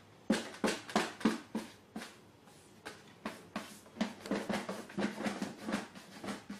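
A quick, irregular run of knocks and scuffs, several a second, with a pause of about a second midway.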